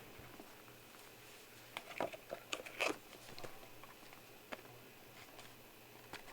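Trading cards and their plastic packaging being handled: a handful of short clicks and crinkles, bunched together about two seconds in, with one more click a little later.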